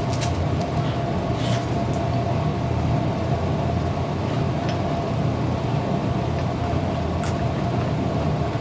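Steady low mechanical hum, like a running motor or fan, with a few faint clicks scattered through it.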